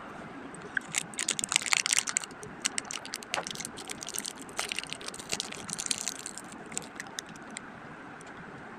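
Plastic candy packaging being handled and crinkled: a dense run of irregular crackles and clicks from about a second in, thinning out after about seven seconds.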